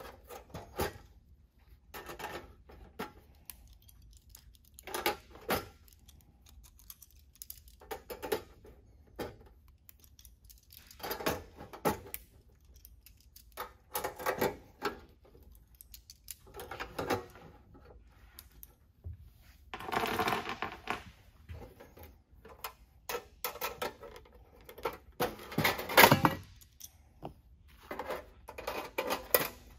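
Cleco fasteners being pulled from an aluminium rudder skin with Cleco pliers, and sheet aluminium being handled: clusters of small metallic clicks and clinks every two to three seconds, the loudest near the end.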